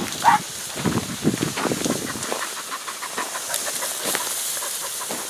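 Rustling and crackling of dense reeds and brush being pushed through, heavier for the first two seconds, then lighter scattered ticks over a steady hiss. A short high squeak stands out about a quarter of a second in.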